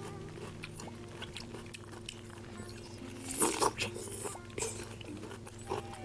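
A person biting into and chewing fruit close to the microphone, with a loud crunchy bite about three and a half seconds in and softer chewing bursts after it.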